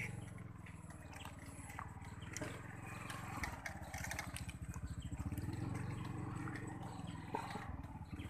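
Small motorcycle engine running at low speed, a steady low putter that swells a little about five seconds in, with light knocks and rattles over the bumpy dirt track.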